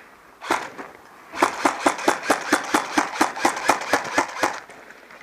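A person running on outdoor ground: a fast, even run of footfalls, about five or six a second, for about three seconds, after a single knock near the start.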